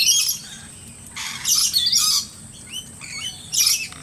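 Noisy miners calling: three harsh, scratchy bursts of chatter, one near the start, a longer one a little past a second in and one near the end, with short chirps between.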